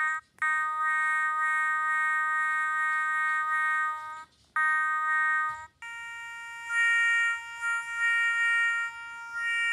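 Electronic toy playing a synthesized sound made of steady electronic tones. A chord is held for about four seconds, cuts off, and returns briefly. Then a different chord sounds, with several louder swells over it near the end.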